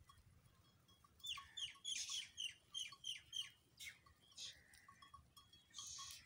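Bird calls: a quick run of about eight short, high notes, each falling in pitch, starting about a second in, followed by scattered fainter calls.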